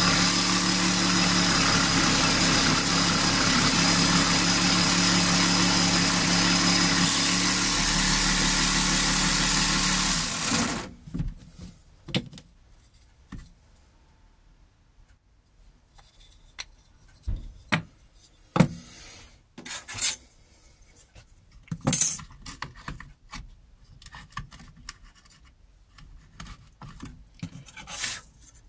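Parkside 12V cordless reciprocating saw, mounted blade-up under a benchtop table, running steadily as it cuts through a small wooden block, then switching off about ten seconds in. After that come scattered light knocks and clicks as the cut wooden pieces are handled.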